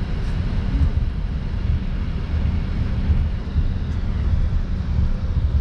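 Airliner cabin noise while taxiing: jet engines at idle with a steady low rumble and uneven thumping from the undercarriage rolling along the taxiway.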